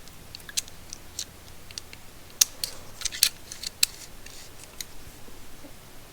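Irregular small clicks and ticks from handling a stainless steel momentary switch and a measuring tool, taking a reading of its threads; a cluster of sharper clicks comes around the middle.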